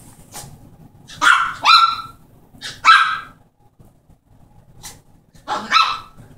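Yorkshire terrier barking in short, sharp, high-pitched barks at a new dog bed it is fighting: a quick pair, a single bark, then another quick pair near the end, with a few fainter barks between.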